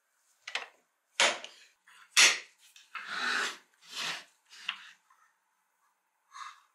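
A rusty tobacco cutter on its weathered wooden board is being handled and shifted across a wooden tabletop, making a series of wooden knocks and scrapes. The loudest knocks come about one and two seconds in, with a longer scrape just after.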